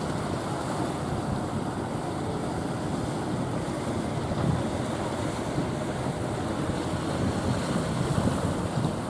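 Steady rush of rough surf and churning white water, with wind buffeting the microphone.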